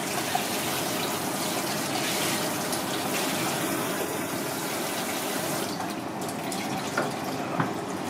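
Water hissing from a sink spray nozzle onto a stainless steel sink and the hands and fish under it. The spray stops about six seconds in, followed by a couple of light knocks.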